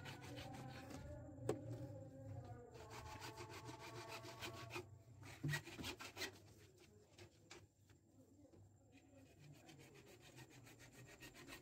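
Faint scraping strokes of a hand tool working on site, with a few scattered knocks and clicks; the strokes fall into a regular rhythm near the end.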